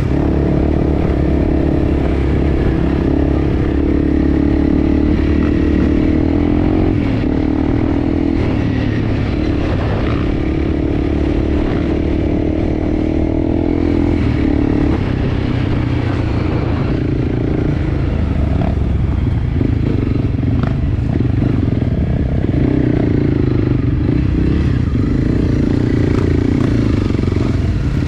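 Enduro motorcycle engine running steadily while riding, its pitch rising and falling a little, with a few light knocks and clatter over the top.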